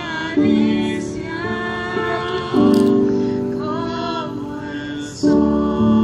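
Women singing a slow song over sustained keyboard chords.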